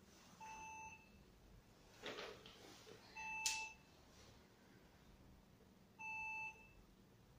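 Electronic beep sounding three times, each about half a second long and about every three seconds, with a sharp click near the middle.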